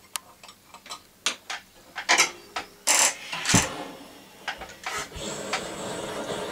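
Clicks, scrapes and knocks of small jeweller's tools being handled, the loudest a sharp knock about three and a half seconds in. From about five seconds in comes the steady hiss of a small hand-held gas torch, lit to warm a metal cross gently before patina goes on.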